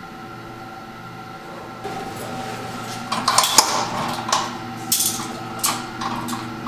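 A run of sharp clinks and knocks, like metal or dishware being handled, starting about two seconds in over a steady hum.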